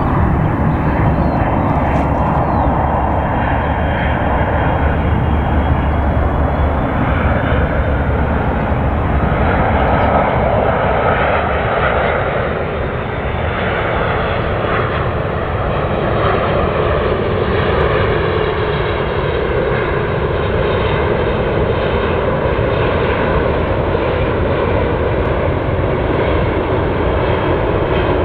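Airbus A330-343 airliner with Rolls-Royce Trent 700 engines on final approach, gear down: a steady, loud jet rush with faint high whining tones through it.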